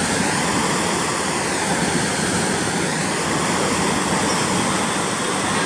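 Water rushing through the open sluices of a canal lock gate and churning into the lock chamber below as it fills: a loud, steady rush.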